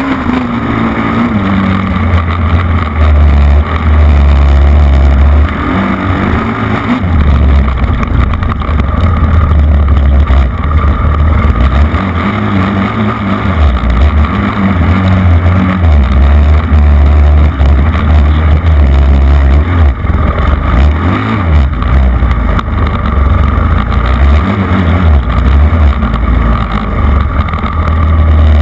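Engine of an off-road vehicle driving hard on a dirt track, its revs rising and falling, with a heavy low rumble of wind on the microphone that dips out briefly a few times.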